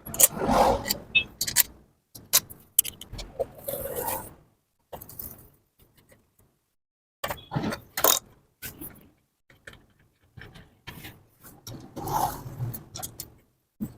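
Metal engine parts and hand tools being handled: irregular clinks, light jangling and short scrapes of metal on metal, with a quiet spell partway through.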